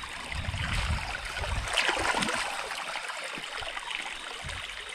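Shallow creek water flowing and trickling, with a brief louder burst of noise about two seconds in.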